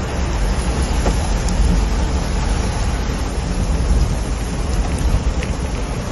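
Heavy rain beating on a moving vehicle, heard from inside the cab, over a steady low rumble of engine and road noise.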